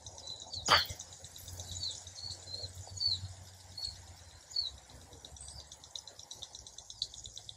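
Small birds chirping repeatedly in short calls, with one sharp crack less than a second in: a golf club striking a ball.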